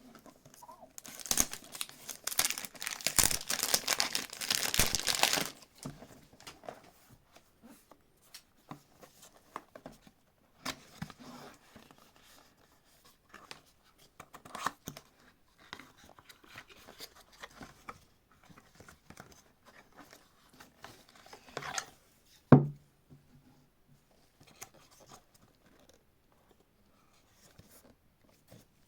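Wrapping torn and crinkled off a perfume box for about four seconds, then quieter rustling and handling of the box. A single sharp knock about 22 seconds in is the loudest sound.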